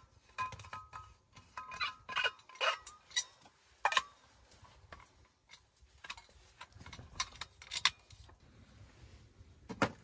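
Metal clinks, clicks and scrapes of a steel Stanley vacuum flask as its cap and cup are handled and screwed, with a series of sharp ringing clinks in the first few seconds and more around the middle. A firmer knock near the end as the flask is set down.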